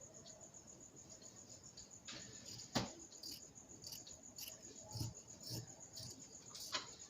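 Scissors cutting cloth for a blouse: faint scattered snips and rustles, the sharpest click about three seconds in.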